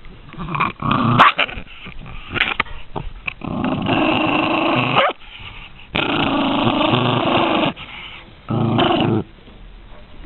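Dog growling as it guards a raw meaty bone: a few short growls, then three long growls, the last one shorter.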